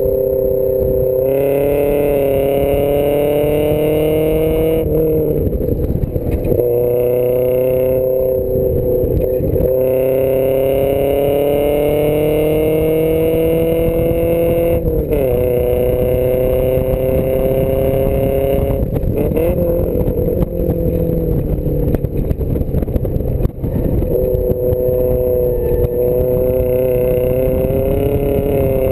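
Small sports car's engine heard from inside the cabin on an autocross run, pulling hard with its pitch climbing steadily and then dropping back sharply several times as the driver lifts or shifts between corners.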